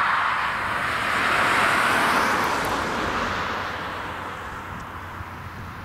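Scheibe SF-25 C Falke motorglider's piston engine and propeller running as it passes close by along a grass strip. The sound is loudest about two seconds in, then fades as it moves away.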